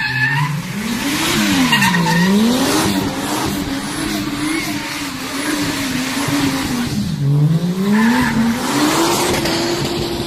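Toyota Soarer drift car's engine revving hard while it drifts, its pitch climbing and falling several times with deep dips about two seconds and seven seconds in, over the squeal and scrub of its rear tyres sliding on the road.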